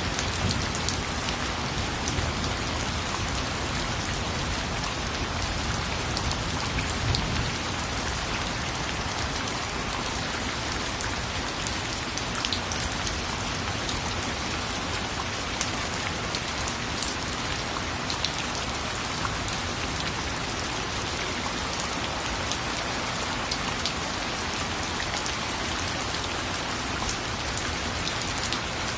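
Steady rain falling, a constant hiss with many individual drops pattering and ticking on a surface.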